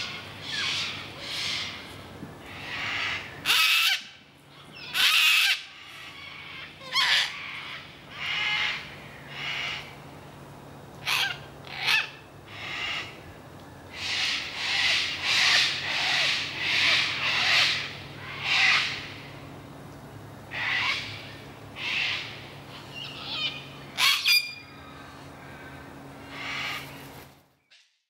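Sulphur-crested cockatoos screeching over and over, a call about every second, with a few calls much louder than the rest.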